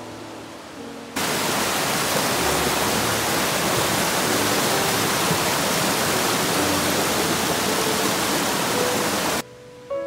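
Gentle piano background music, then about a second in a loud, steady rush of a mountain stream tumbling over rocks cuts in abruptly, with the music faint beneath it; the water cuts off suddenly near the end and the music carries on alone.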